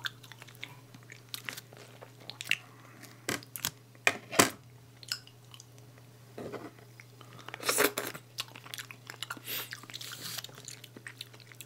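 Close-miked chewing and biting of ripe mango, with wet mouth sounds and scattered small clicks and knocks, over a steady low hum.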